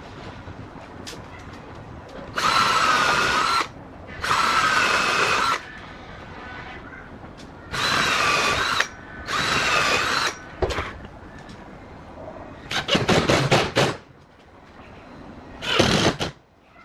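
Electric drill run in short bursts, its motor whine wavering under load: four bursts of about a second each, then a quick stutter of trigger pulses and a final short burst.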